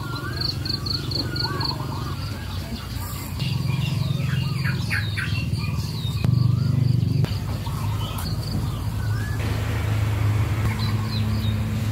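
Several small birds chirping and calling: a quick run of about six short high notes near the start, then warbling calls and fast sweeping chirps a few seconds in, over a steady low rumble that swells around the middle.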